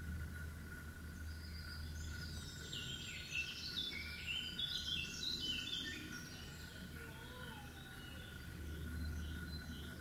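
A songbird singing: a fast run of short, high notes tumbling downward over a few seconds, starting about a second and a half in. A steady faint high whine and a low hum run underneath.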